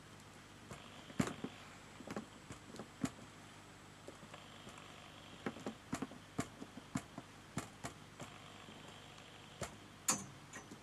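Cardstock pieces being handled and pressed together on a work table: about a dozen scattered light taps and clicks, with a short papery rustle near the end.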